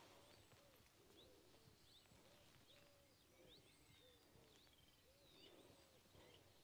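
Faint birdsong: a low, repeated cooing with higher short chirps from small birds over it.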